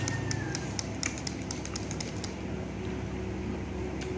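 Light, irregular plastic clicks and taps from a baby bottle being handled and pawed at, thick in the first two seconds and sparse after, over a steady low hum.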